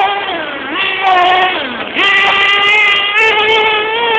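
Thunder Tiger ST-1 RC stadium truck's motor, heard close from the truck itself, revving high. Its pitch drops as the throttle eases off about half a second in and again around a second and a half in, then climbs back and holds high to the end.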